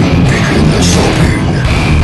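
Death metal / goregrind recording playing loud and dense, a full band going without a break.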